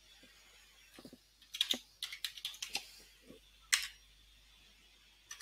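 Typing on a computer keyboard: a burst of quick keystrokes from about a second in, then one louder key strike near four seconds.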